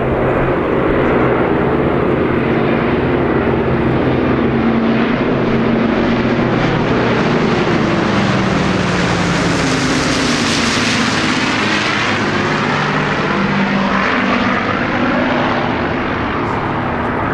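A formation of WWII propeller aircraft, an Avro Lancaster bomber with fighter escort, flying low overhead: a steady drone of many piston engines. The sound grows brighter to a peak about ten seconds in as they pass over, then drops in pitch as they move away.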